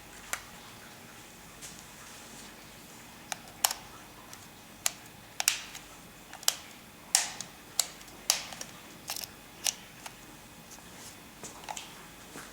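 Irregular sharp plastic clicks and knocks, about fifteen in all, of a hand-held hair dryer and its attachments being handled; the dryer is not running.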